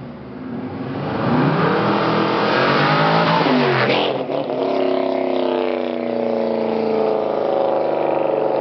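Honda S2000 fitted with a GM LS1 5.7-litre V8, accelerating toward and past. The engine note climbs as it approaches, drops sharply in pitch as it goes by about four seconds in, then carries on loud as the car pulls away.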